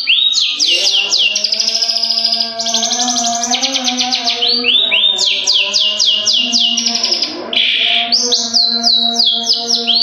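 Long-tailed shrike (cendet) singing hard: fast runs of high, sharply falling whistled notes, several a second, in bursts broken by short pauses. Steady lower held tones of music sit beneath the bird.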